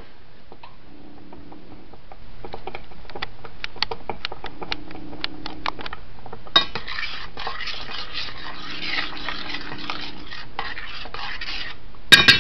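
Spoon stirring thick sauce in a stainless steel saucepan: scattered clicks and pops at first, then a steady scraping around the pan from about halfway. Near the end, two sharp ringing clangs as the spoon knocks against the pan.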